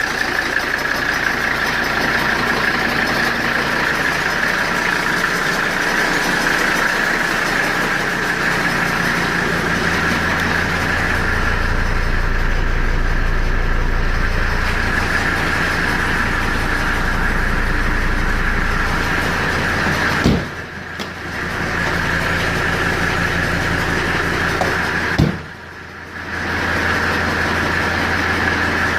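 Mercedes-Benz W123 engine running at idle with a knock-like noise, which the owner puts down to a bad fan clutch rather than engine knock. The sound drops briefly twice, each time starting with a sharp click.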